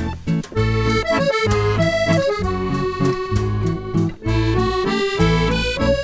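Background music: an accordion-led tune over a steady, regular bass beat.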